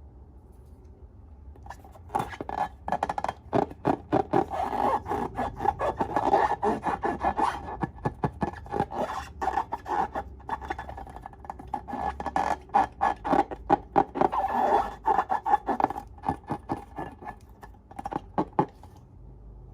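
Slime being squeezed and kneaded by hand, giving a dense run of rapid clicking and crackling pops that starts about two seconds in and stops shortly before the end.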